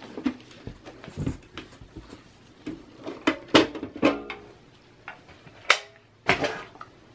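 Irregular clicks and knocks from the Dell OptiPlex small-form-factor computer's metal case being handled and turned over, several of them ringing briefly.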